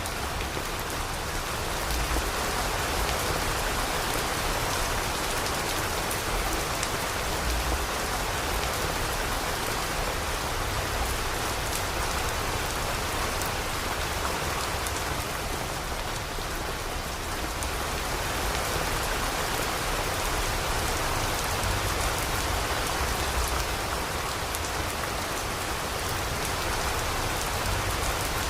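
Steady rain falling, an even hiss of drops that eases slightly about halfway through.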